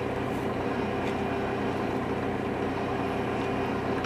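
Diesel engine of a railway maintenance motor car running steadily at idle, an even, continuous drone.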